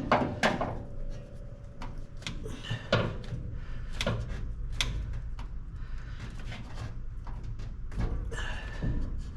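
Irregular light clicks and knocks from hands handling small parts and tools, over a low steady hum.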